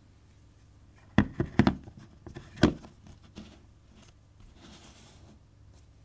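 Handling noise from a metal camera lens, a Leitz Noctilux 50mm f/1.2: a quick cluster of light knocks and clicks about a second in, then a single sharper knock a second later. Near the end comes a soft brushing as the lens is set down into its upturned lens hood on the desk.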